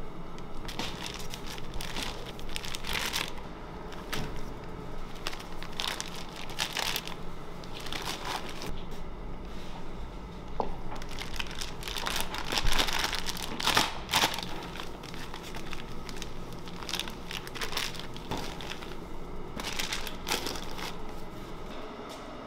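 Clear plastic piping bag crinkling and rustling in irregular bursts as cream is spooned into it and the bag is squeezed and twisted, loudest a little past halfway.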